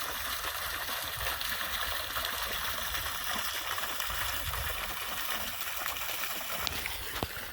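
Dense night-time frog chorus, a steady unbroken hiss of many calls overlapping, with a low rumble underneath.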